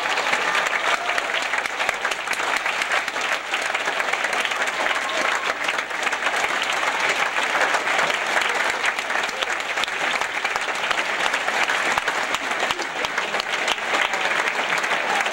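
A large theatre audience applauding steadily at a ballet curtain call: a dense, unbroken patter of many hands clapping.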